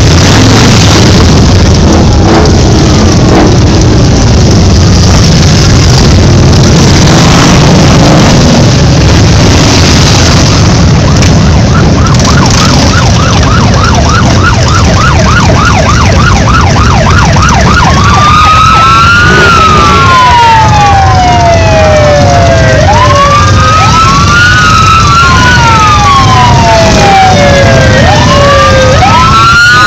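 Motorcycle engines, mostly Harley-Davidsons, rumbling loudly close by as the bikes roll past. A siren comes in about halfway through, first as a fast yelp of about four or five warbles a second, then as slow rising-and-falling wails, two of them overlapping.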